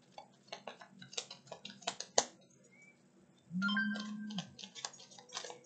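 Scattered light clicks and taps, with a short steady low hum about three and a half seconds in.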